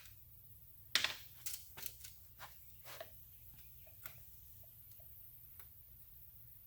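Light clicks and taps of a ruler being set down and shifted against a steel panel while measuring. The loudest comes about a second in, then a handful more, fewer and fainter toward the end.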